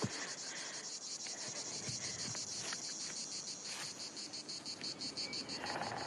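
Insects chirring: a steady, high, fast-pulsing trill that keeps an even rhythm throughout.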